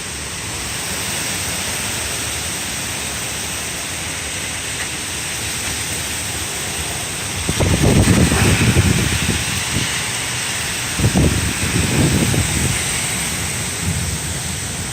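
Heavy thunderstorm rain hissing steadily, with two stretches of low rumble, one about halfway through and another a few seconds later.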